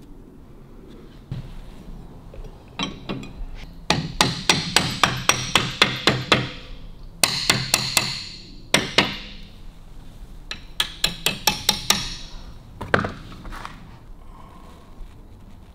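Hammer tapping on metal in quick runs of sharp, ringing strikes, about five a second, with a few single strikes in between.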